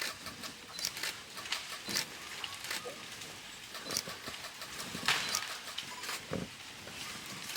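Forest ambience with scattered short chirps and sharp clicks, one after another, plus a brief low thud about six seconds in.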